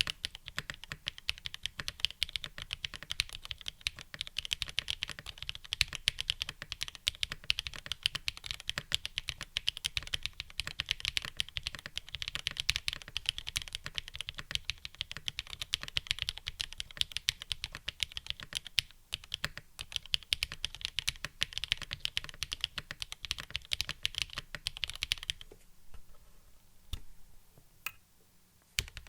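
Fast, continuous typing on a custom Geon Frog TKL mechanical keyboard with lubed linear switches (Kailh black stems in Cherry MX Hi-Ghost Black housings) on an FR4 half plate, with GMK keycaps. The typing stops about 25 seconds in, leaving a few isolated keystrokes.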